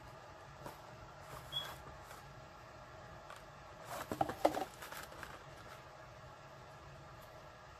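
Small white cardboard box being slid open and handled, with light taps and rustles, and a louder run of clicks and scraping about four seconds in as the lid comes off and the box pieces are set down.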